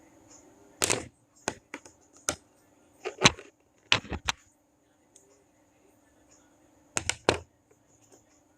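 Microphone packaging being handled by hand: a run of sharp clicks and knocks in the first four or five seconds, then two more near the end.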